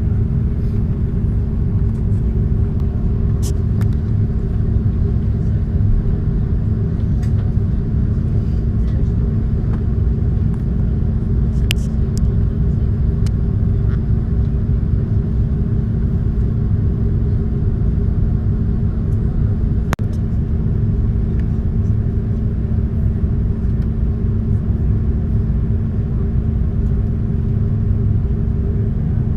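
Cabin noise inside an Airbus A330 taxiing: a steady low rumble from the jet engines at idle and the airframe rolling, with a constant hum and a few faint clicks and rattles.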